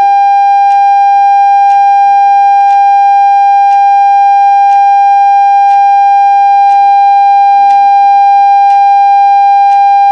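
A phone speaker's 'Clear speaker' cleaning tone: one loud, steady, buzzy high tone played at full volume to shake dust out of the speaker, with faint ticks about twice a second.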